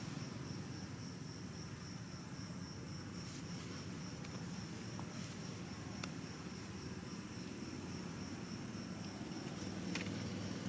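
An insect chirping steadily in a high, evenly pulsing trill, over a low steady rumble.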